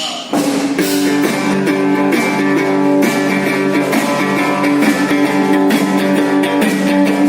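Live band playing: strummed guitar with sharp percussion hits over it.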